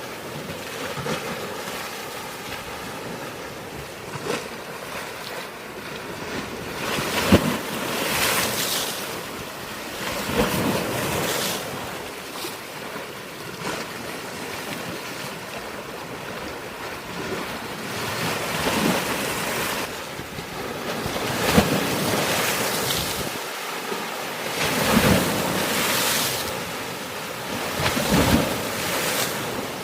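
Sea waves breaking and washing over a rocky shore: a steady rush of surf that swells every few seconds with sharper splashes as waves hit the rocks.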